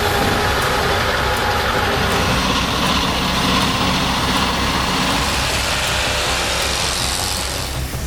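Heavy truck engine running steadily and loudly, with a dense noise over it; the sound drops away sharply near the end.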